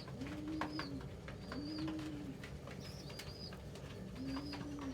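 Domestic pigeons cooing: three low, arched coos, each under a second long, with faint short high chirps between them.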